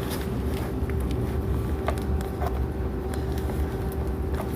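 Steady low machine hum with a faint steady tone, and a few light clicks from handling the armrest parts.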